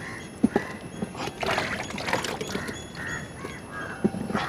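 Washed button mushrooms being handled on a metal tray, with a few sharp knocks, while an animal, likely a bird, gives short repeated calls in the background.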